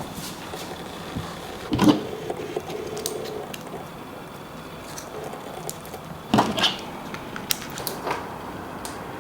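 Scattered mechanical clicks and knocks from tools and bike parts being handled during a bicycle build, with two louder knocks about two seconds in and again near six and a half seconds.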